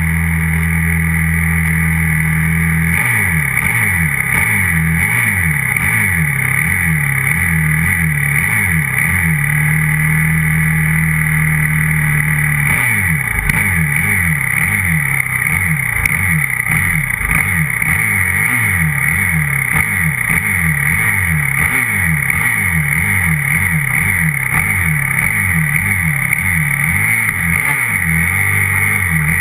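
125cc grass-track motorcycle engine running, held steady for a few seconds and then blipped in quick repeated revs, about two a second. The blipping pauses for a few seconds near the middle, then resumes.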